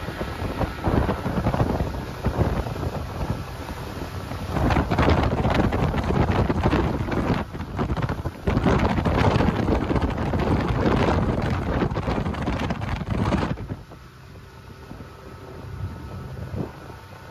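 Wind buffeting the microphone on a moving motorboat, in loud gusts over the hull and motor noise; about three-quarters of the way through the wind noise drops off suddenly, leaving a steady low motor drone.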